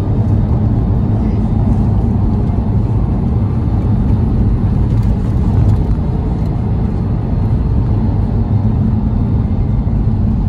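Cabin noise of a 2008 Porsche 997 Carrera driving down a bumpy road: a steady low rumble of the rear-mounted 3.6-litre flat-six engine and tyres.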